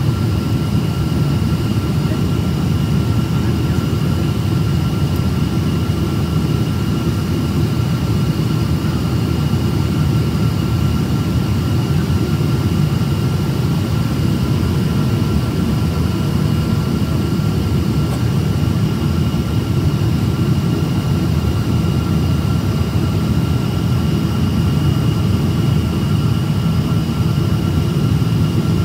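Steady low rumble of jet engines and airflow heard inside a Boeing 777-200's cabin during descent, with faint steady whine tones riding above it.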